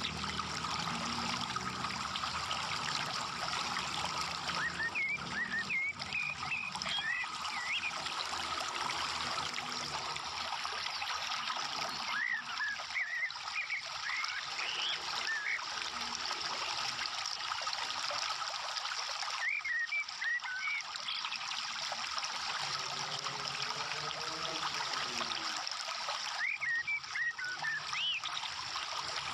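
Steady trickle of running water, with clusters of brief high chirping calls several times.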